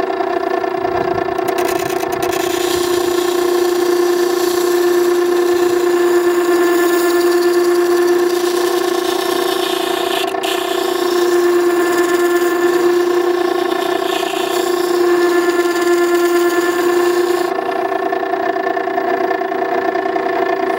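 Makita 9820 electric water stone grinder running with a steady hum while a chisel's bevel is ground freehand on the wet wheel. The steel-on-stone scraping starts about two seconds in and stops about three seconds before the end, when the chisel is lifted off, leaving the motor hum alone.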